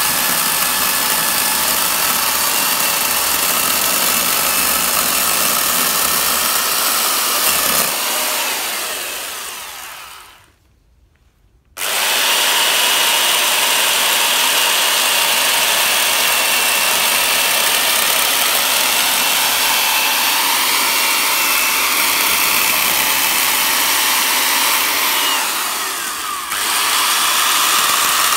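Small chainsaw running steadily as it carves into a bonsai trunk's deadwood. About eight seconds in it winds down and goes quiet for about a second, then starts again suddenly at full speed, with a brief dip near the end.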